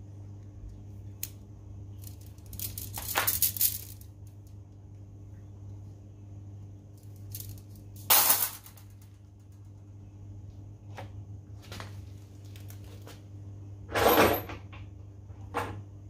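A steady low hum throughout, broken by three short, loud, hissy rustling bursts about three, eight and fourteen seconds in, and a few faint clicks, as copper refrigerant pipe and fittings are handled.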